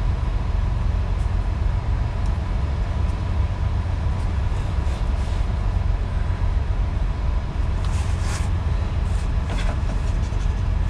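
Steady low rumble like a vehicle or machine running, with a few light clicks and rattles about eight and nine and a half seconds in.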